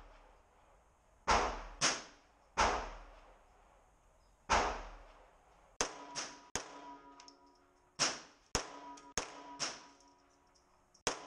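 Shots from a Ruger Mark III 22/45 .22 LR pistol fired in quick double taps: about a dozen sharp cracks, mostly in pairs about half a second apart, each with a short echo. Background music comes in about halfway through.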